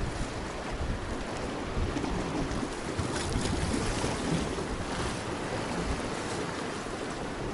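Wind buffeting the microphone, with a steady wash of sea waves behind it.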